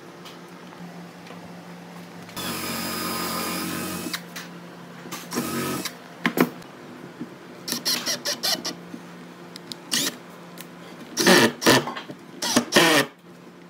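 Cordless drill running in short bursts, drilling into the edge of a wooden tabletop: one steady run of about a second and a half near the start, and the loudest bursts near the end.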